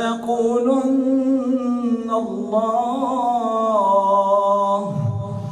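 A man reciting the Quran in melodic tajweed style, drawing out one long chanted phrase whose pitch slowly rises and falls, sinking lower near the end.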